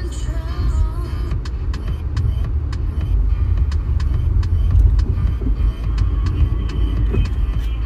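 Low road rumble of a moving car heard from inside the cabin. Faint music from the car stereo fades out in the first second, and a quick run of light ticks follows.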